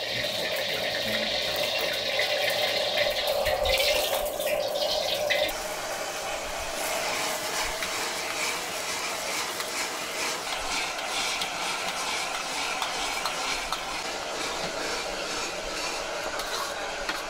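A stockpot of soup at a rolling boil for about the first five seconds. Then a noodle stir-fry in an iron wok: a metal spatula scraping and clattering against the wok over a steady sizzle.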